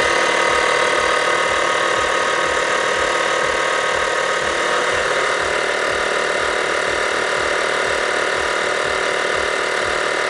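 Built-in air compressor of a Lokithor JA301 jump starter running steadily while inflating a car tyre toward a preset 36 PSI. It makes a loud, even mechanical buzz with a fast, regular pulse underneath.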